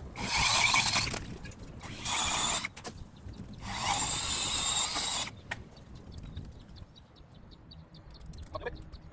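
Electric power saw cutting tree branches, running in three short bursts within the first five seconds, followed by faint ticks and rustling.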